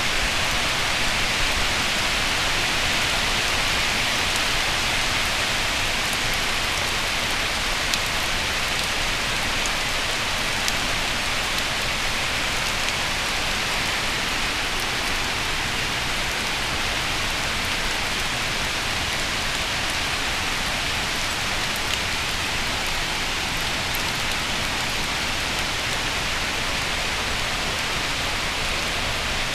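Hurricane rain falling steadily, with a few sharper drop hits standing out now and then.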